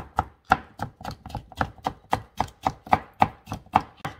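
A chef's knife chopping cucumber on a cutting board, quick even strokes at about four a second, stopping just before the end.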